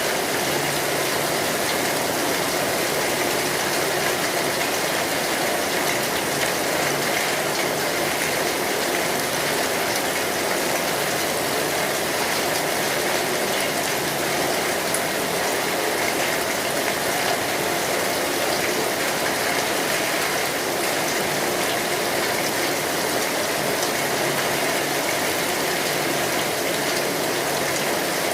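Steady heavy rain drumming on a metal roof, an even, unbroken wash of patter.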